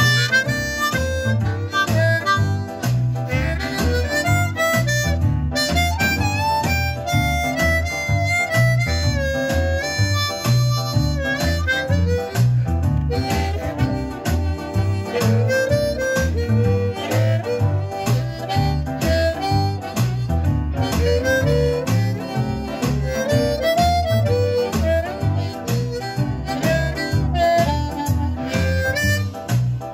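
Blues harmonica played with cupped hands, with sliding, bent notes in a flowing melody. Under it runs a blues backing track with guitar and a steady low beat.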